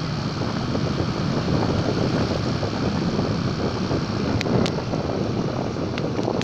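Wind rushing over the microphone with road and engine noise from riding on a motorbike, dense and steady, with a couple of sharp clicks about four and a half seconds in.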